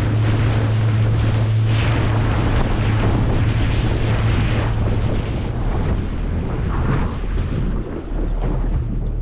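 Boat motor running under way, a steady low drone that fades about halfway through, with wind buffeting the microphone and water rushing past the hull.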